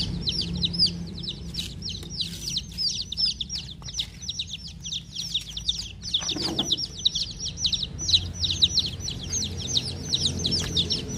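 A group of domestic chicken chicks peeping continuously, a dense stream of short, high, downward-sliding peeps.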